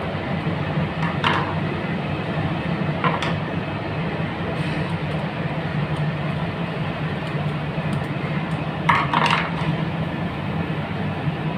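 A steady low hum and rumble of background noise, with a few short clicks and rattles of wires being handled and pushed into a contactor's terminals: one about a second in, one around three seconds, and a double click near nine seconds.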